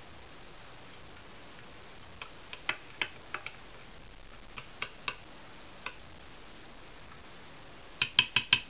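Teaspoon clinking against the inside of a stainless-steel electric Turkish coffee pot while stirring coffee, in scattered light clinks. Near the end comes a quick run of about six louder clicks in under a second.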